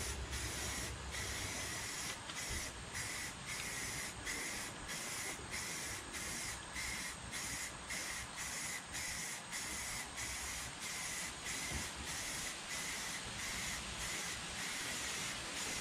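Aerosol spray paint can hissing steadily as white paint is sprayed onto a lawn tractor hood, the hiss broken by short pauses about twice a second.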